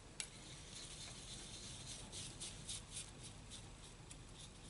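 Faint, light scraping and ticking of a steel palette knife as it is wiped clean and then worked through oil paint on a palette. The small ticks come in a quick cluster in the middle.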